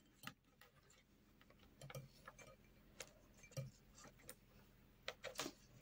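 Metal-tipped circular knitting needles clicking faintly against each other as stitches are knitted, a dozen or so uneven light clicks.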